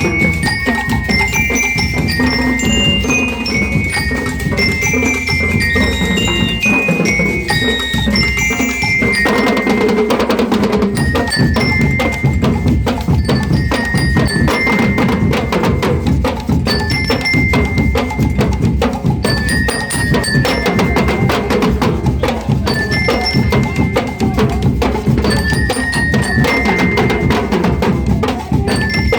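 Marching-band bell lyres (liras) playing a bright, ringing melody over steady marching drums; the melody runs in quick descending phrases at first, then settles into a short phrase repeated every couple of seconds.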